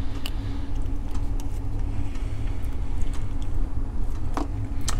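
A few small sharp clicks of a screwdriver against plastic watch parts as a digital watch's module is pushed out of its case, over a steady low background hum.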